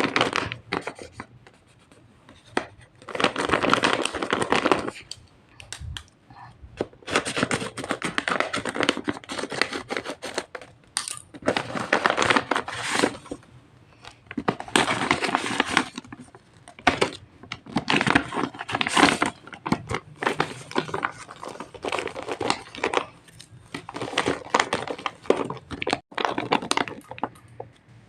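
Paper and tape packaging being torn and crinkled by hand in repeated bouts of a second or two each, as paper squishies are unwrapped.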